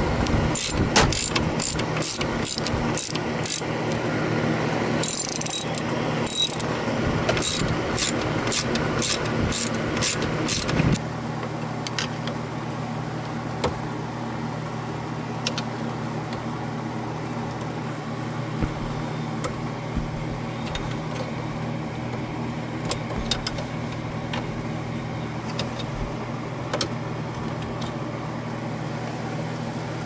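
Ratchet wrench clicking in quick, even runs of strokes, about two to three a second, as Torx screws are worked loose. The clicking stops about eleven seconds in, leaving a steady low hum with an occasional light tick.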